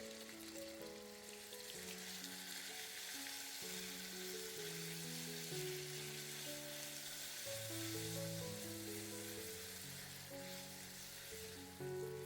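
Food sizzling steadily in a hot frying pan, a dense crackling hiss, over soft background music with steady, held notes.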